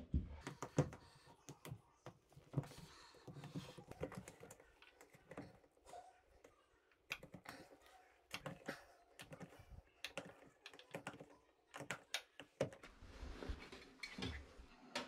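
Faint, irregular clicks, taps and rubbing as an LG front-loader's rubber door boot seal is pressed by hand onto the metal rim of the cabinet opening.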